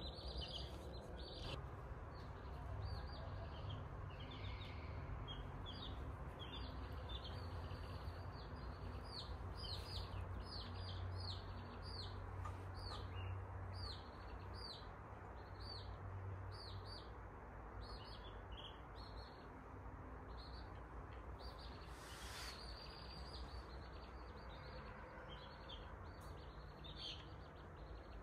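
Baby chicks peeping: a fast, continuing run of short, high, falling peeps. A brief rustle comes about three-quarters of the way through.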